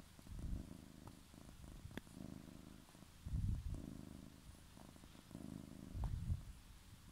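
Domestic cat purring steadily while being scratched on the head, the low rumble swelling louder three times.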